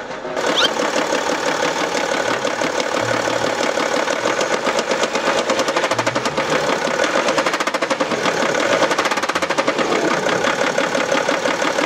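BMW X5 E70 30d's M57 3.0-litre straight-six diesel running with a rapid, steady metallic knock, the throttle lightly pressed. The knock is the pounding of a connecting rod against the crankshaft through worn crank bearings, as the mechanic judges it.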